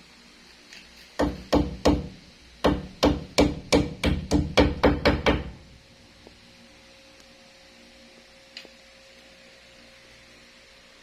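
A run of about a dozen sharp hammer blows, roughly three a second, that stops about halfway through.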